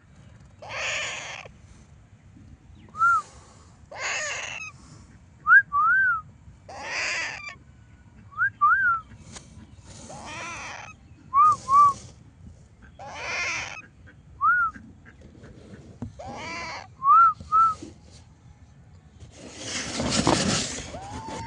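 Pet parrot calling: harsh, raspy squawks of about a second each alternate with short whistled notes that rise and fall, some single and some in quick pairs. A longer, louder raspy call comes near the end.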